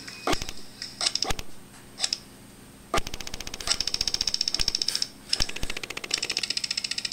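Airsoft rifle firing in a firefight: a few single shots, then from about three seconds in long full-auto bursts of rapid, evenly spaced clicking shots, with a brief break near the five-second mark.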